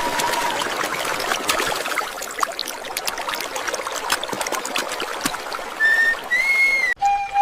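Water splashing and trickling over a toy train water track, dotted with many small clicks and clatters of plastic pieces. Near the end come a few brief whistle-like tones, then a sudden cut to a steady whistle tone.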